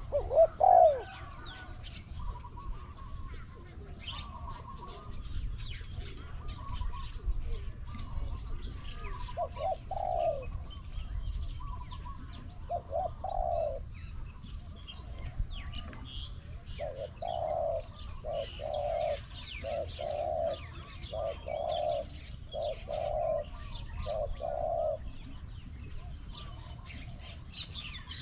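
Spotted dove cooing in low phrases, with a long series of about eight coos in quick succession in the second half. Small birds chirp faintly throughout.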